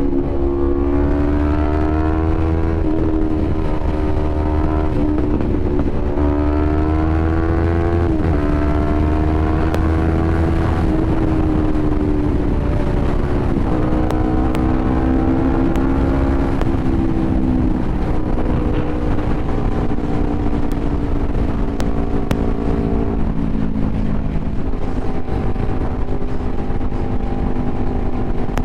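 Yamaha YZF-R3's parallel-twin engine through an Akrapovič full exhaust at highway speed, its pitch climbing and easing off several times as the throttle is worked, then settling lower and steadier near the end. Wind rushes on the microphone throughout.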